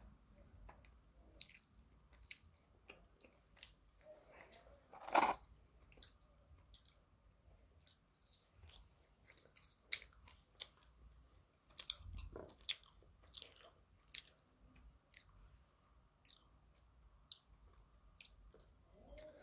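A person chewing french fries close to the microphone: many short, crisp mouth clicks and smacks, with one louder noise about five seconds in.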